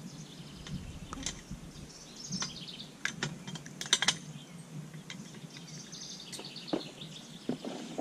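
Sharp metal clicks and taps from a hand tool working the bolts on an Alaskan chainsaw mill's height-adjustment posts as the cut depth is set, with a quick run of clicks about three seconds in and the loudest near four seconds. Birds chirp in the background.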